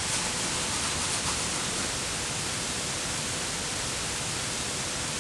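Steady even hiss of recording noise, with a faint steady tone underneath.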